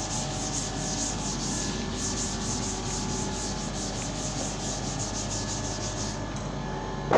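Chalkboard duster scrubbed briskly back and forth across a chalkboard, wiping off chalk writing: a rapid rubbing rhythm of about five strokes a second that stops about six seconds in.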